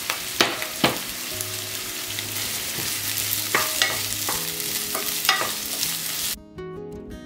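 Chopped red and green peppers and onions sizzling in hot olive oil in a pan, stirred with a wooden spoon that knocks against the pan several times. Near the end the sizzling cuts off and acoustic guitar music takes over.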